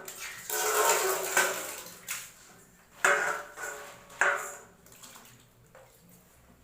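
Water sloshing and splashing in a vessel as goat lungs are washed by hand. It comes in separate splashes: a longer one early, then sharper ones about three and four seconds in, each dying away.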